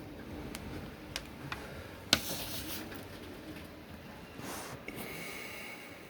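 Handling noise from small electronic parts and mounts: a few light clicks and taps, the loudest about two seconds in, with short rustles. A faint high steady tone appears near the end.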